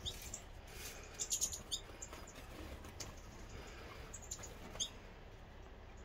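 Small aviary finches chirping: a quick run of short, high chirps about a second in, then scattered single chirps, one near the end.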